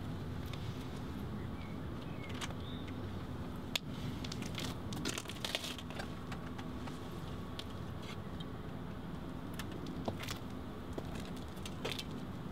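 Steady low background rumble, with scattered rustles and small clicks from a leather jacket and handheld objects being handled: a sharp click about four seconds in, then bursts of rustling around five seconds and again near the end.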